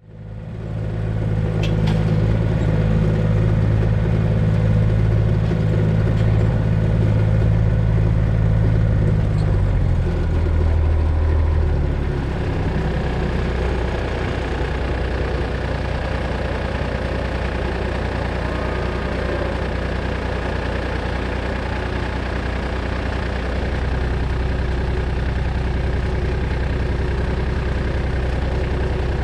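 A vehicle engine idling steadily close by; its note drops to a lower, steady idle about ten seconds in.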